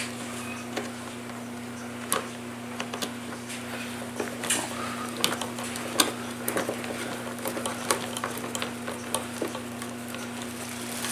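Light, irregular clicks and ticks of a hand-turned screwdriver bit working a screw out of a plastic leaf blower housing, with small handling knocks, over a steady low hum.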